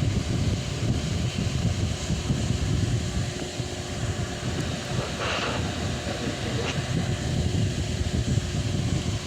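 Delta Free electric fan running at full speed, its strong airflow buffeting the microphone in a steady, gusty rumble over a faint motor hum.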